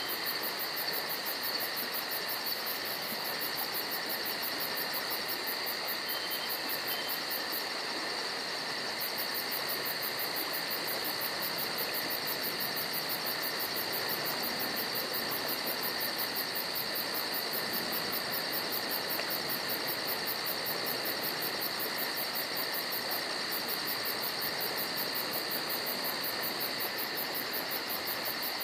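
Crickets chorusing: a steady high-pitched trill over a constant hiss.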